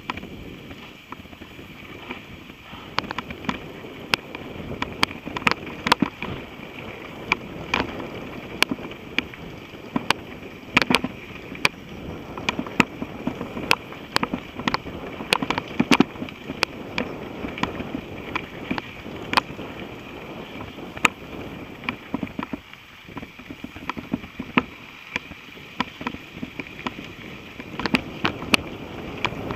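Mountain bike rolling over a rough dirt trail: a continuous rumble of tyres on dirt, broken by frequent sharp rattles and knocks as the bike jolts over bumps.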